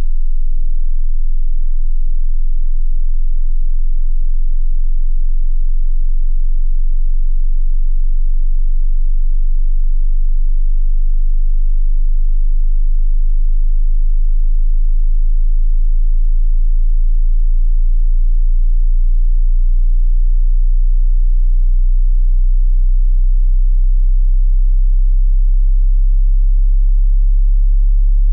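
Pure sine-wave test tone at the very bottom of the hearing range, starting near 20 Hz: a deep, steady hum that slowly rises in pitch at an even loudness. It is the start of a hearing-test sweep from 20 Hz to 20 kHz.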